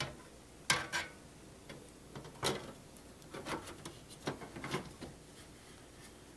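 A desktop hard drive being fitted into the metal drive bay of a PC tower case: a series of irregular knocks, clicks and light scrapes as the drive and case are handled.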